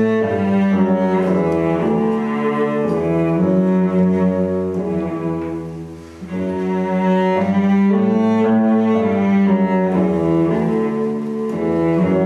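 Slow instrumental closing music of long held notes over a low bass line, with a brief lull about halfway through.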